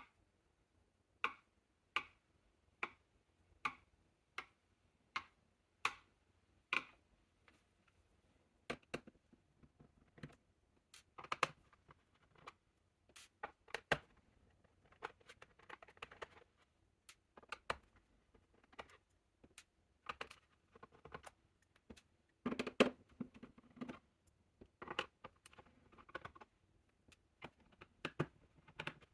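Sharp clicks and small handling noises from tools and hands working on a laptop's plastic case. The clicks come evenly, a little more than one a second, for the first several seconds, then turn irregular with light scraping and tapping.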